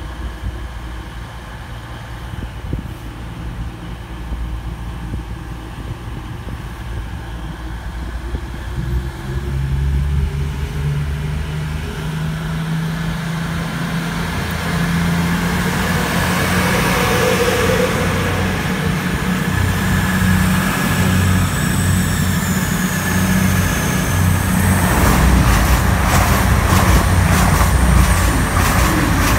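Class 222 Meridian diesel multiple unit pulling away from the platform: its underfloor diesel engines rise in note about nine seconds in and grow louder as the train gathers speed past. A high whine falls in pitch midway, and over the last few seconds the wheels click rapidly over the rail as the carriages pass close.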